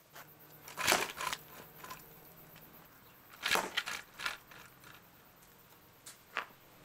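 Miniature trebuchet test shots: a few sharp clacks and thwacks as the arm and sling whip through and small ammo punches into a cardboard target. The loudest hit comes about a second in, a cluster follows around three and a half to four seconds, and two lighter knocks come near the end.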